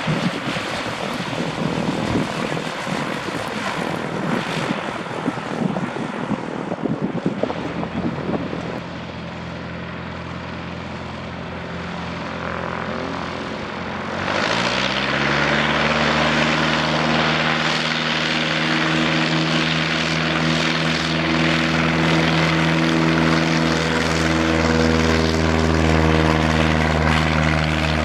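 Propeller aircraft engine running with a steady droning hum. About fourteen seconds in, the pitch rises and the sound grows louder, as if the engine is throttling up, then it holds steady. The first several seconds are a rough rushing noise.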